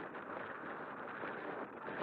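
Strong wind buffeting the microphone: a steady, rough rushing noise.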